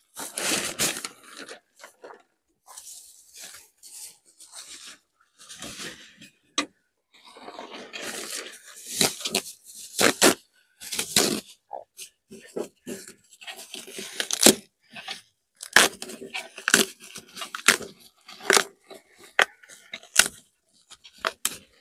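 Plastic wrapping crinkling and rustling in irregular bursts as a new folding camping table is pulled from its carry bag and unwrapped, with a few sharp clicks and knocks.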